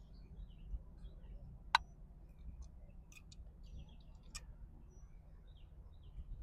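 Plastic parts being handled and fitted together: a mounting adapter pushed into the socket on a Starlink Mini dish. One sharp click comes a little under two seconds in, and a weaker click with a few small ticks follows past four seconds.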